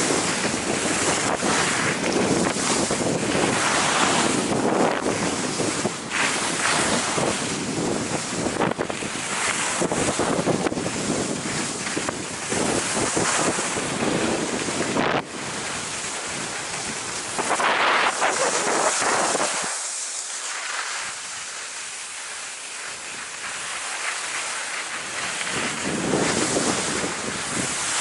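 Wind rushing over the camera microphone during a fast downhill run on snow, mixed with the hiss and scrape of edges sliding over packed snow. The low wind rumble eases for a few seconds past the middle, then returns.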